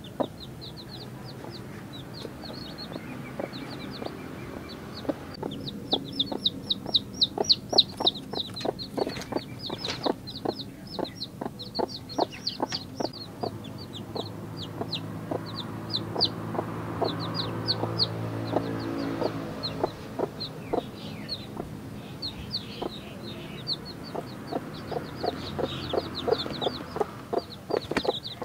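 Two-day-old chicks peeping, a constant run of short, high, falling cheeps, while the mother hen clucks low and softly among them. For a few seconds in the middle the hen's clucking runs into a longer, low, steady murmur.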